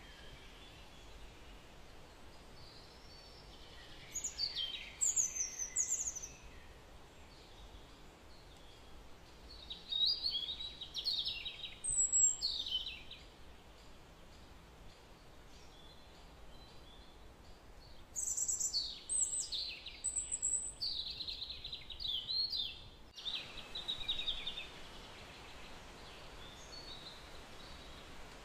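Birdsong: a small songbird singing phrases of quick, downward-sweeping whistled notes in three bouts, about 4, 10 and 18 seconds in, with pauses between, over a faint steady hiss.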